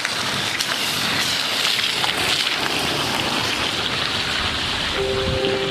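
Steady rushing noise with no clear source, with a few held musical notes coming in near the end.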